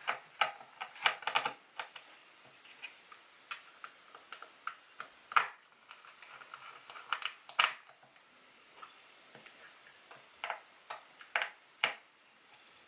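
Irregular small clicks and taps in clusters as a small screwdriver turns screws into the SSD's side bracket and the parts are handled.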